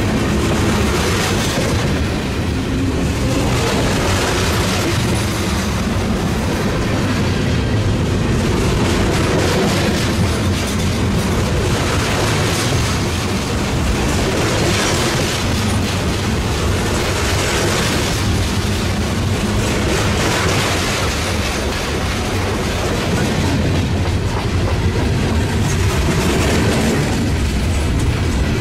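Freight train cars rolling past close by: a steady rumble of steel wheels on rail with a rhythmic clickety-clack, the hiss swelling and easing every couple of seconds as the cars go by. The cars are container-laden well cars, then hoppers and a tank car.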